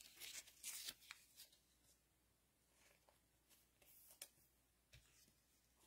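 Near silence with faint, scattered rustles and light ticks of trading cards and packs being handled, a few together in the first second and a few more later on.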